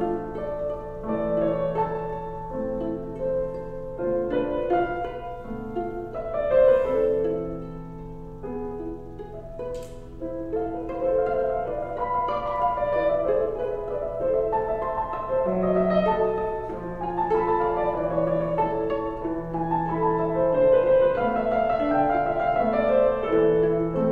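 Viola and Steinway grand piano playing classical chamber music together, the viola's bowed melody over piano accompaniment. A faint click sounds once about ten seconds in.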